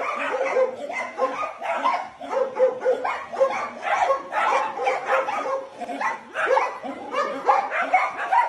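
Dogs barking, a steady run of short barks several a second with hardly a pause.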